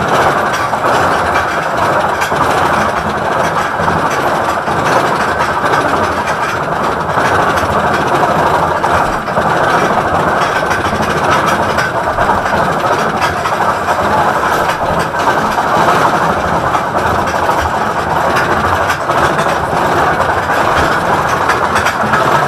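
Roller coaster train of the Gemini racing coaster running along its track at speed: a steady, loud rolling rattle of the wheels on the rails.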